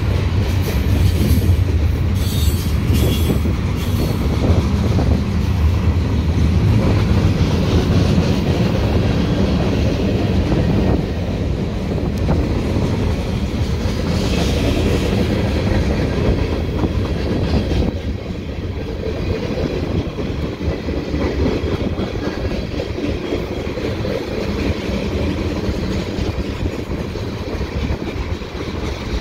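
CN freight train's cars rolling steadily past: a continuous low rumble with the clickety-clack of wheels over rail joints. Brief high wheel squeals come a couple of seconds in and again about halfway through.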